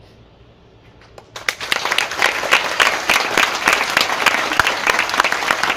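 A hushed pause, then audience applause breaks out about a second in: many hands clapping in a dense, steady patter.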